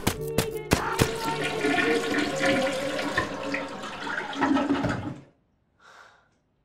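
Toilet flushing, cutting off suddenly about five seconds in. A brief faint hiss follows about a second later.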